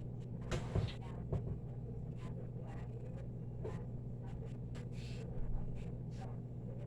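Flour-coated chicken frying in hot oil: scattered crackles and pops over a steady low hum. Louder rustling bursts come about a second in and again near five seconds in.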